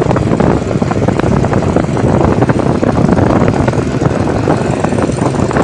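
Motorbikes running at speed on the road, with wind buffeting the microphone as it rides alongside: a loud, steady rush of engine, tyre and wind noise.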